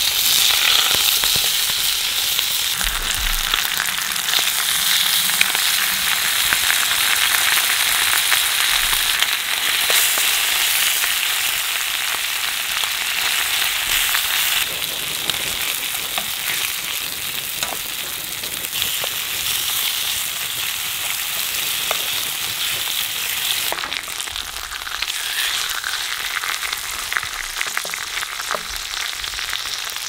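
Thick-cut bacon sizzling in hot olive oil in an iron frying pan: a steady hiss dotted with fine crackles and spits of fat, a little quieter in the second half.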